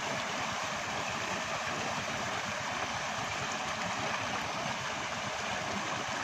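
Tubewell water gushing from the outlet pipe and splashing into a brick tank, a steady rushing.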